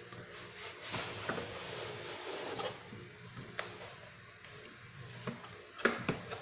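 Cardboard outer sleeve being slid off a boxed gimbal's inner case: a rustling scrape of card on card for a couple of seconds, then a few sharp taps and knocks near the end as the box is handled.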